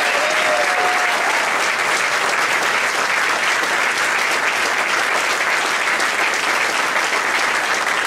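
Large crowd applauding steadily, with a few whoops and shouts in the first second.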